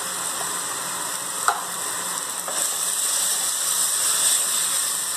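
Chopped onion, bell pepper and garlic sizzling in hot oil in a clay pot as diced tomato is tipped in and stirred with a wooden spoon, with one light knock about a second and a half in. The sizzle grows a little louder from about halfway.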